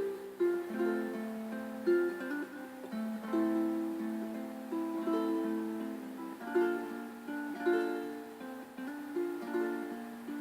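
Background music: a plucked string instrument playing a melody over chords, each note struck and then fading.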